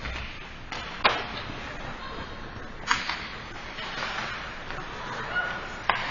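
Three sharp knocks of hockey sticks and puck on the ice, about two seconds apart, in an indoor rink, over steady rink background noise and faint distant voices.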